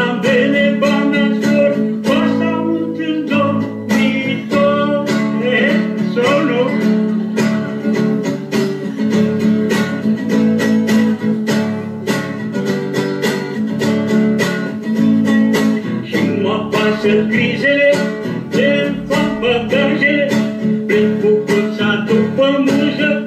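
A recorded song being played back: a sung poem set to music, a voice singing over strummed acoustic guitar.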